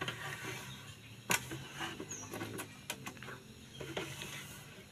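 Scattered small clicks and light rattling of a steel tape measure being drawn out and handled against a plywood speaker box, with a sharper click about a second in and another near the end.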